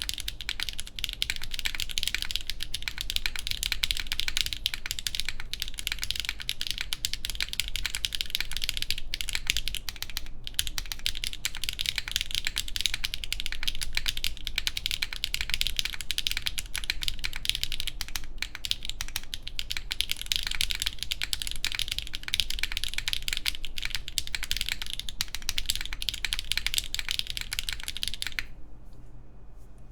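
Fast continuous typing on a Geonworks F1-8X V2 mechanical keyboard with HMX Macchiato switches, a full aluminum plate, GMK keycaps and lubed TX clip-in stabilizers, built without the case screw under the spacebar. The run of keystrokes stops about two seconds before the end, leaving a few single key presses.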